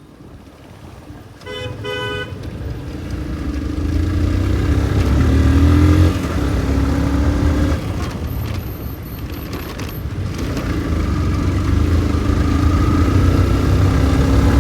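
Motorcycle riding and accelerating: a low engine and road rumble grows louder twice, with the engine pitch rising about five seconds in. A vehicle horn toots twice, briefly, about two seconds in.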